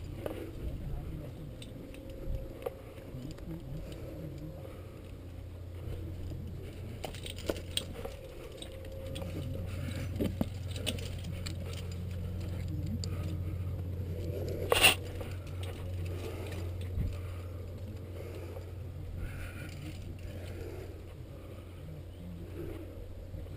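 Close-up sound of a rock climber on the move: hands and shoes scraping on rock and climbing gear clinking, over a steady low rumble. One sharp click about fifteen seconds in is the loudest sound.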